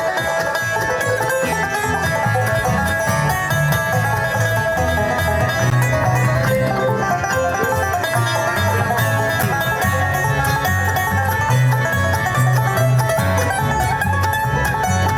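Bluegrass band playing an instrumental stretch: quick banjo picking over guitar, with low bass notes stepping underneath and no singing.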